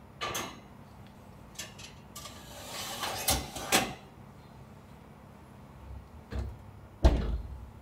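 Ceramic loaf pans set down on a wire oven rack with light clinks, then the rack pushed in with a metal scrape and two sharp clicks. Near the end the oven door shuts with a heavy thud.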